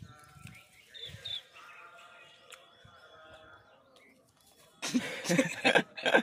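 Birds chirping faintly in the background, then a loud, harsh burst of sound about five seconds in.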